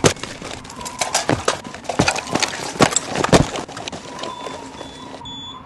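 Several soldiers in combat boots running across a gritty paved surface: a quick, uneven run of heavy footfalls that thins out after about three and a half seconds, over a faint steady hum. A couple of short electronic tones sound near the end.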